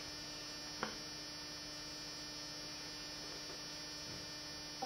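Steady electrical hum with a faint high whine, and a single faint click just under a second in.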